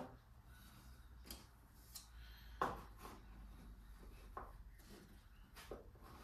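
Faint, scattered scrapes and taps of a spreading tool working two-part filler into chipped wood veneer, about half a dozen in all, the sharpest tap about two and a half seconds in.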